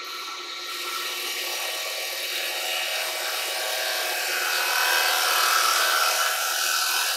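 Carbide chisel cutting a spinning silver birch bowl on a wood lathe: a steady hiss of shavings coming off the wood, starting under a second in and growing louder toward the end, over the steady hum of the lathe at a raised speed.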